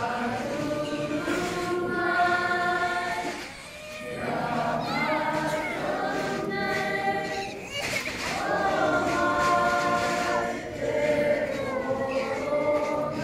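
A group of children singing together in a choir, in phrases of long held notes with short breaks between them.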